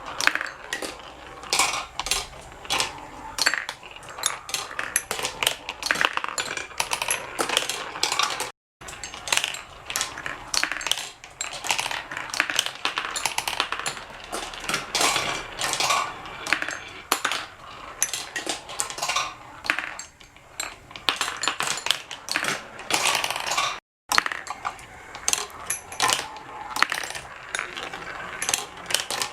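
Marbles rolling and clattering down a small marble run: a constant stream of quick clicks and clacks as they hit the track and each other. The sound cuts out twice, very briefly.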